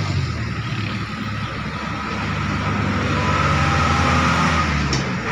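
A motor vehicle engine running steadily, a low hum that stops about five seconds in, with a short click just before it stops.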